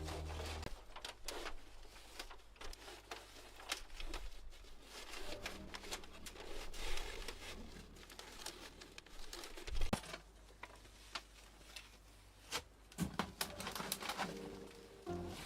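Irregular crinkling and rustling with small clicks and knocks, as of camping gear or fabric being handled by hand; one louder knock a little past the middle, and a quick run of clicks near the end.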